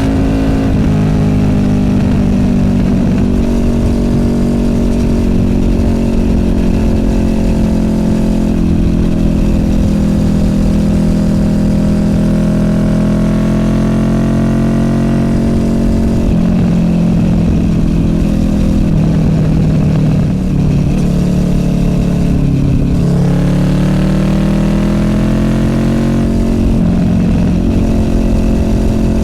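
Honda VFR800F's V4 VTEC engine running through an SC Project Conic exhaust while being ridden. It holds a mostly steady cruising note, with the pitch dropping and climbing several times as the throttle and gears change, and one clear climb in pitch about two-thirds of the way through.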